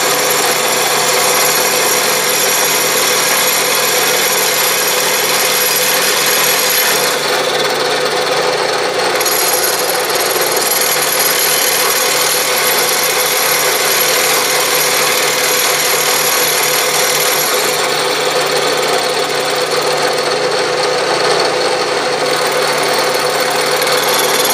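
Vertical milling machine running a small end mill through a light cut across the top of an aluminum casting: a steady cutting noise over the spindle, with high ringing tones that stop briefly twice. The cut is kept from vibrating by a parallel clamped onto the thin-walled casting.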